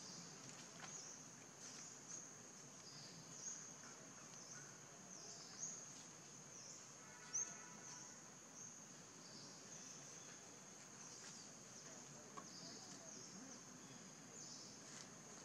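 Faint outdoor ambience dominated by a steady, high-pitched insect chorus, with small chirps riding on it. There is one short click about seven seconds in.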